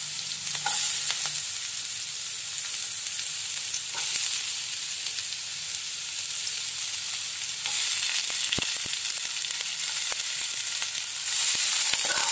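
Sliced onions sizzling in hot oil in a pan, a steady high hiss. Near the end they are stirred and the sizzle grows louder.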